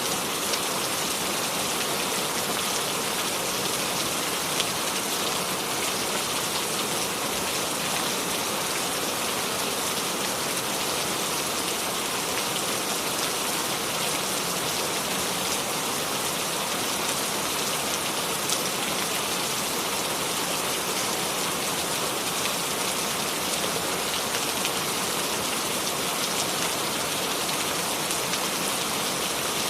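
Steady rain falling and pattering on surfaces, a dense even hiss of drops with no thunder.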